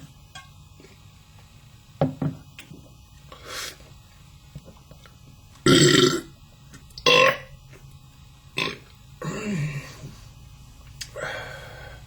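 A man belching, a string of about six or seven short beer burps, the loudest about six seconds in. None of them are the really long ones he is trying for.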